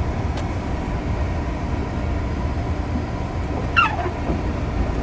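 Car engine and road rumble heard from inside the cabin as the car sets off, with one short falling squeak near the end.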